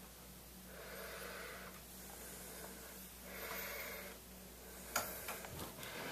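A person breathing heavily, two long breaths, then a sharp knock about five seconds in followed by a few softer clicks.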